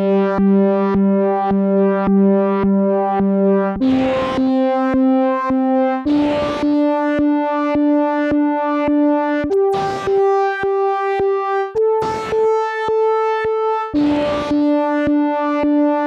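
Newfangled Audio Pendulate software synthesizer, a mono synth with a double-pendulum chaos oscillator, playing a demo patch. Held notes step to a new pitch every two to three seconds, each starting with a short burst of noise, over an even ticking of about four clicks a second.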